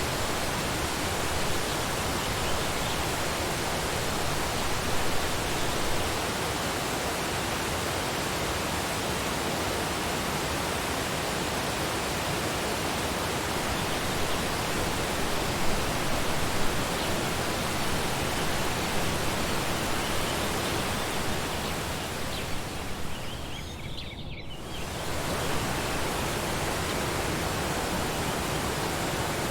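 Waterfall pouring steadily, a dense even rush of water. About three-quarters of the way through, the rush briefly thins and drops before returning.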